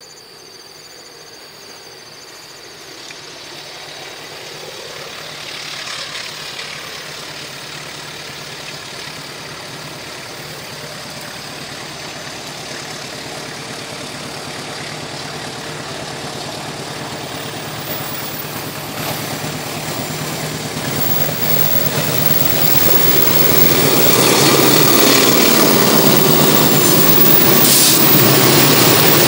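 Diesel locomotive hauling a container freight train approaching, its engine running with a steady drone that grows steadily louder until it is passing close by in the last few seconds.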